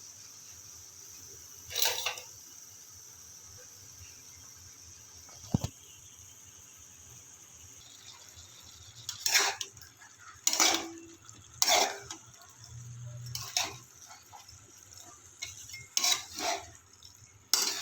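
Cookware and a utensil clattering and scraping in short strokes, one at about two seconds, then a run of about seven in the second half, with a single sharp click about five and a half seconds in.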